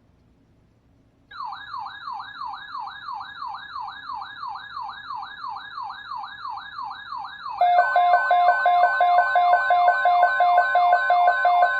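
Emergency alert attention tones: an electronic siren of quick rising sweeps, about three a second, starts a little over a second in. At about seven and a half seconds a louder steady two-tone alarm with a pulsing beep comes in over the sweeps. They are the attention signal ahead of a severe thunderstorm watch alert.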